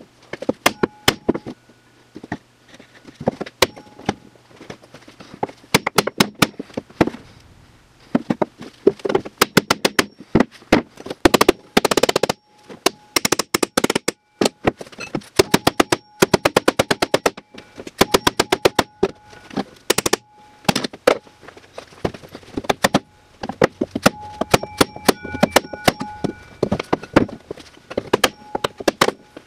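Heavy hammer pounding on a snowmobile's aluminium chassis to straighten it, rapid blows in bursts with short pauses, the metal ringing faintly between strikes.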